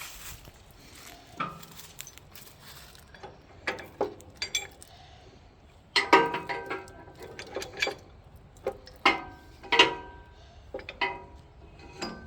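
Steel hitch pins and tractor three-point linkage clanking and clinking as a pin is tried in the top link of a box blade hitch: a few light knocks, then from about halfway a quick run of sharp, ringing metal-on-metal clanks.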